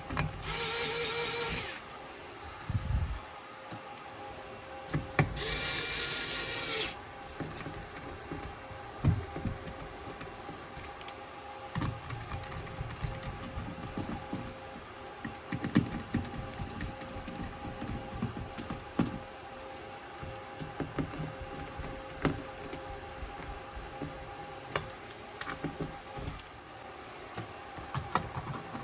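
A power drill runs in two short bursts, each about a second and a half long, a few seconds apart. After that come scattered clicks and knocks of tools and parts being handled during a faucet repair.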